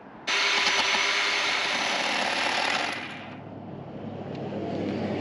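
Battery-powered electric tire grooving tool cutting a groove into a truck tire's rubber tread. It starts abruptly, runs steadily for about three seconds, then drops to a much quieter sound.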